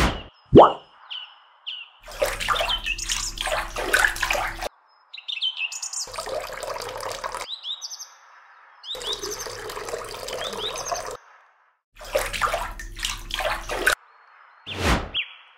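Water splashing and pouring in four short bursts that start and stop abruptly, from a tiny metal water pot being dipped into a model pool. Birds chirp in the gaps.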